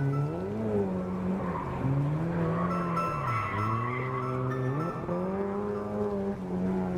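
Car engine revving up and down several times, with tires squealing in the middle of the stretch.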